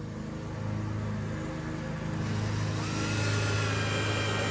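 Power drill driving screws to attach hinges: its whine rises about two and a half seconds in and then holds steady. A steady low hum runs underneath.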